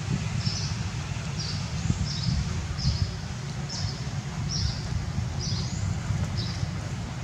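Outdoor ambience: a bird's short high chirp repeated steadily, about once a second, over a constant low rumble.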